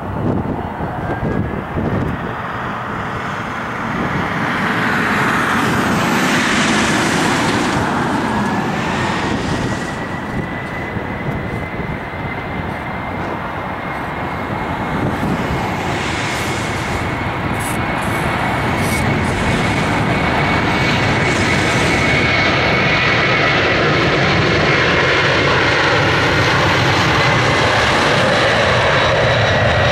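Boeing 767-300ER's Pratt & Whitney PW4000-94 turbofans spooling up to takeoff thrust: a whine rises in pitch over the first several seconds and then holds steady. Under it a jet rumble grows louder as the airliner accelerates down the runway.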